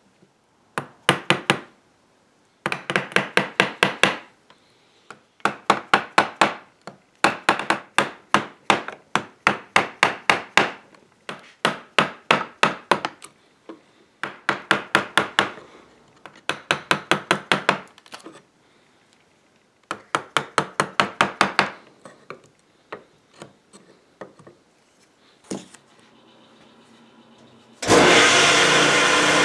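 Wood chisel being struck with a mallet in quick runs of light taps, about nine runs, squaring a corner in walnut. Near the end a jointer starts up abruptly and runs steadily and loudly.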